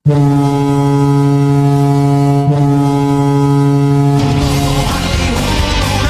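Oulun Kärpät's arena goal horn blowing one long, steady, deep blast of about four seconds. About four seconds in it gives way to the team's loud rock goal song.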